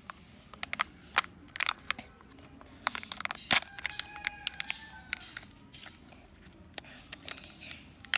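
Plastic and foil packaging of a Kinder Joy egg being peeled and pried open by hand: scattered crackles and sharp clicks, the loudest about three and a half seconds in.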